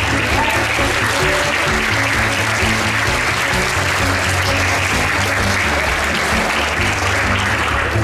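Applause, steady throughout, with music playing underneath.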